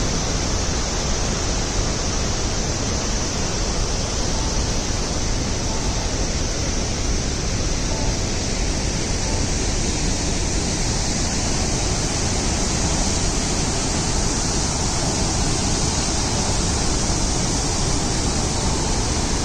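Fast-flowing mountain water rushing: a steady, even noise with no breaks.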